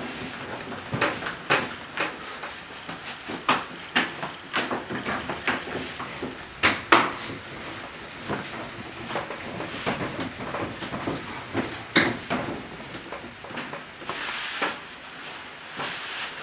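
Irregular knocks, taps and clatter of food-preparation handling on a work surface, a few sharper knocks standing out, with a brief hiss near the end.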